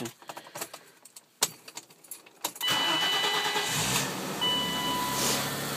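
Keys clicking in the ignition, then about two and a half seconds in the 1989 BMW 525i's 2.5-litre straight-six cranks briefly, catches at once without hesitation and settles into a steady idle. Steady electronic tones start sounding about a second after it catches.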